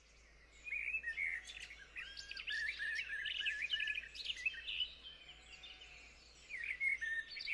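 Several songbirds singing and chirping at once, a busy chorus of quick, overlapping high phrases that thins out a little past the middle and picks up again near the end.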